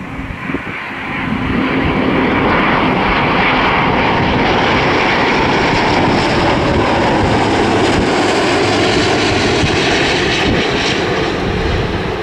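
An airliner's engines passing close by: the roar swells about a second in, stays loud, and its tone falls in pitch near the end as the aircraft goes past.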